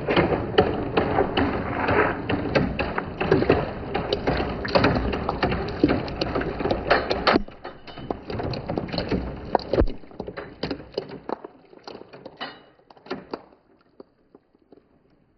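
Balls rolling and clattering down a wooden marble run, a dense run of clicks and knocks on the wooden track. About halfway through the clatter thins to scattered clicks, which die away shortly before the end.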